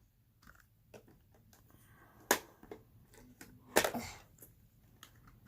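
A few sharp plastic clicks and taps from handling a toy cash register and its play items, two of them louder, about two and almost four seconds in; no beeps.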